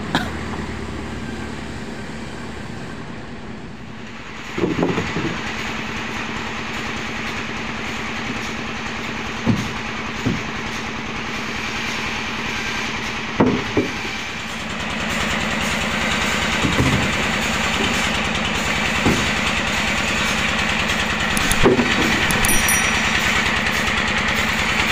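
An engine idling steadily, with a series of dull, irregular wooden knocks as timber beams are handled and set down.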